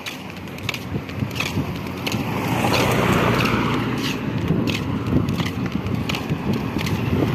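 A vehicle approaching on the road, its tyre and engine noise swelling from about two and a half seconds in, over footsteps on the pavement at a steady walking pace.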